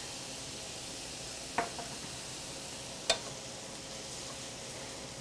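Zucchini noodles sautéing in olive oil in a frying pan, a steady sizzle, with a utensil clinking against the pan twice, about a second and a half apart.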